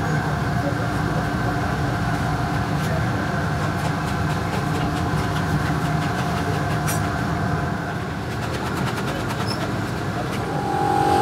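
Steady machine drone with a low rumble and a few steady hum tones. About ten seconds in, a louder steady whine starts.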